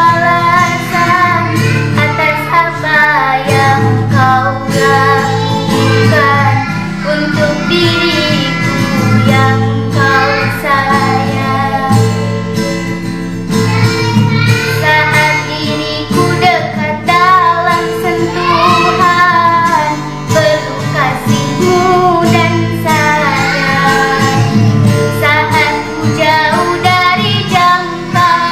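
A young girl singing a slow ballad solo over a karaoke backing track.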